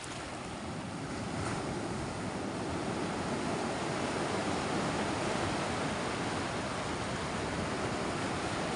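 Sea waves and surf washing with a steady rush of water, with wind buffeting the microphone; the noise swells slightly over the first few seconds.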